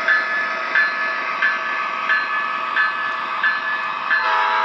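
Sound system of an MTH Railking ES44AC model diesel locomotive ringing its bell about one and a half times a second over the rolling noise of the train on the track. The locomotive's horn sounds near the end.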